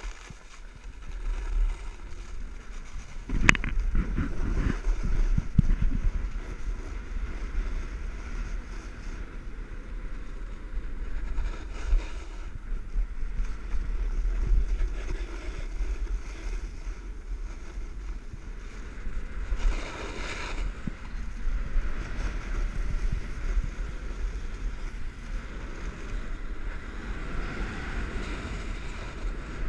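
Snowboard sliding and scraping over groomed snow with wind buffeting the microphone. A sharp knock comes about three and a half seconds in, followed by a few seconds of rougher rumbling.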